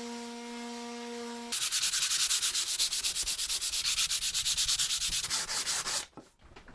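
Sandpaper rubbed briskly back and forth by hand, about five strokes a second, starting about a second and a half in and stopping abruptly near the end. A steady hum runs before the sanding starts.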